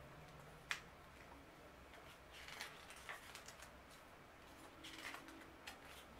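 Faint rustling and light clicks of a CD booklet's paper pages being turned and handled, with one sharper click about a second in, over quiet room tone.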